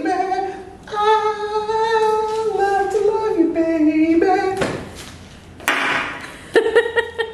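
A man singing long, wordless held notes that slide up and down in pitch, stopping about four and a half seconds in. A short hiss follows about a second later.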